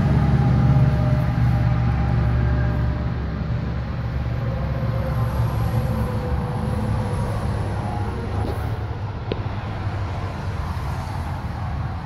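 An engine running steadily, a low drone that slowly grows fainter.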